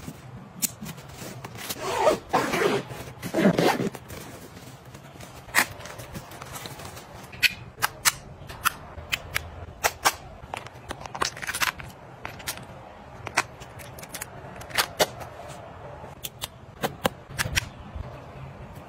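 Plastic cosmetic cases and containers being handled, giving many sharp, irregular clicks and taps. Louder rustling of fabric and plastic about two to four seconds in.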